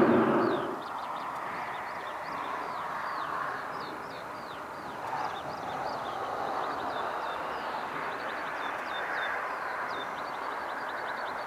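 Jet noise dies away within the first second, leaving small birds chirping and twittering continuously over a steady distant rumble.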